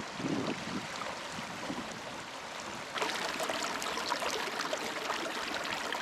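Brook water running steadily over stones, with wind gusting on the microphone in the first second; about halfway through the rush turns suddenly brighter and crisper.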